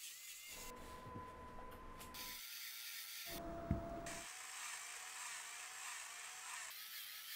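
Small motor of an electric rotary potato peeler running with a faint wavering whine, heard in short stretches that start and stop abruptly. There is a sharp click a little under four seconds in.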